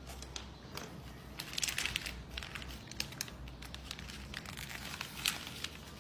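Paper sewing pattern rustling and crinkling in short, irregular rustles as hands fold and press its pleats flat.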